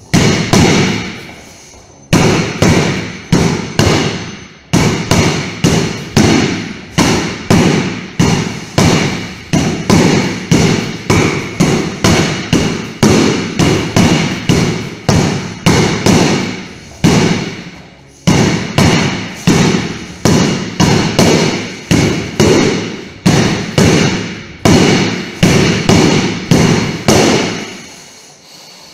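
Training sword striking a hanging heavy punching bag over and over, about one and a half blows a second, each a sharp thud with a short ringing tail. The blows pause briefly about two seconds in and again around eighteen seconds, and stop shortly before the end.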